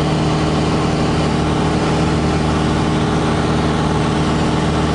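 Piper PA-28-161 Warrior's four-cylinder Lycoming engine and propeller running steadily in cruise flight, heard inside the cabin as a constant even drone with a low hum.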